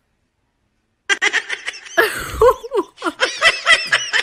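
Near silence for about a second, then a person laughing and giggling in quick, high-pitched bursts.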